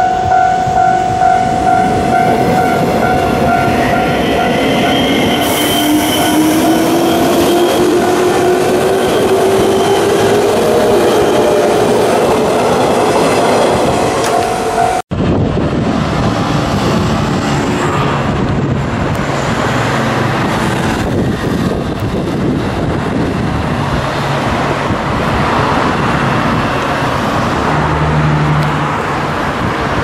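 Level-crossing alarm ringing steadily while an electric commuter train moves off, its motor whine rising in pitch. About halfway through the sound cuts to steady road traffic noise.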